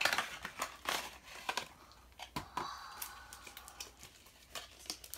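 A slime kit's cardboard box being opened and its packaging handled: irregular crinkling and tearing rustles with small clicks as the slime tub is pulled out.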